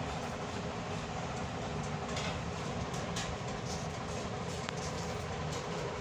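Electric motor and pump of a motorized lubrication unit running with a steady mechanical hum.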